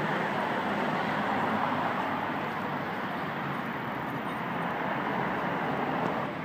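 Steady road traffic noise from a busy multi-lane city street, a continuous hum of passing cars.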